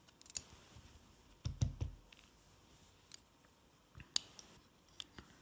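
Scattered light clicks and taps of small lock parts being handled while a pin-tumbler cylinder is taken apart, about five in all, with a duller knock about a second and a half in.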